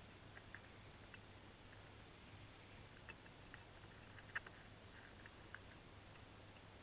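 Feral pigeon pecking bread crumbs off a windowsill: faint, irregular taps of its beak on the ledge, one louder tap about four seconds in.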